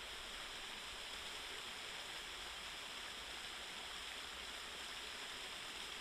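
Babbling brook: a small stream's water running steadily, an even rushing hiss with no single splashes standing out.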